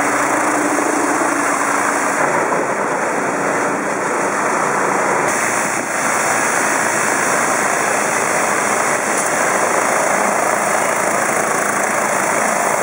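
High-pressure water jets from a rotating undercarriage cleaner spraying the underside of a wheeled construction vehicle: a loud, steady hiss and splatter, with an engine hum running beneath it.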